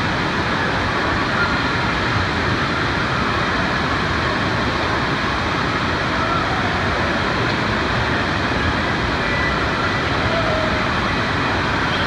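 Steady rushing of water pouring out of tube water slides into a churning splash pool.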